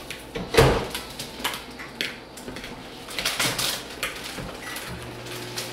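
A sharp knock about half a second in and small kitchen clatter, then a microwave oven starts running about five seconds in with a steady low hum.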